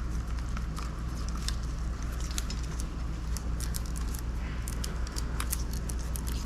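Light, irregular clicks and rattles of small metal parts and wiring being handled, over a steady low hum.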